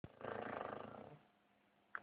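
Dog snoring: one rasping, fluttering snore lasting about a second. A brief sharp high-pitched sound comes near the end.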